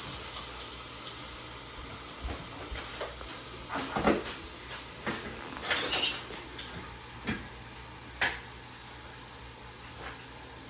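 Kitchen clatter: a string of short knocks and clinks of pots, dishes and utensils being handled, the loudest about four seconds in, then it dies away near the end.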